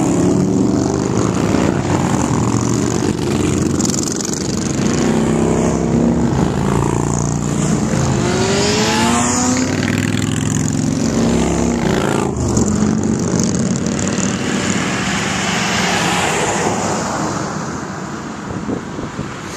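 Touring motorcycles riding past one after another, their engine notes rising and falling in pitch as each goes by, the loudest pass about halfway through. The engine sound eases off near the end as a car follows.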